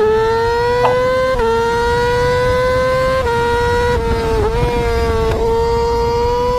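A racing engine held at very high revs, a loud high-pitched whine that climbs slightly and then holds, with a few small dips in pitch.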